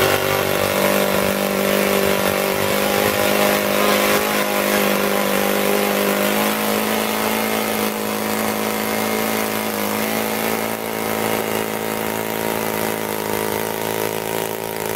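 O.S. FS-30S, a 5 cc single-cylinder four-stroke model aircraft engine, running steadily with its propeller spinning, holding an even pitch.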